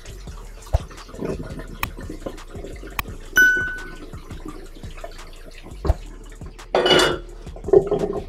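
Tap water running onto drained pasta in a plastic colander in a stainless steel sink, with small knocks and clinks of the steel pot. About three and a half seconds in, the pot strikes the metal with a single ringing clang.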